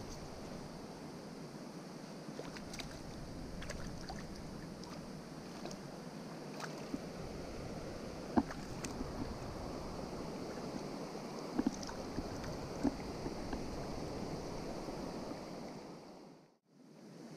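River water running steadily past, with scattered small clicks and taps; the sound fades out shortly before the end.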